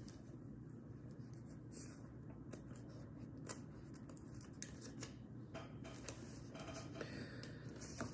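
Faint paper rustling with scattered soft ticks, as the pages of a book are turned.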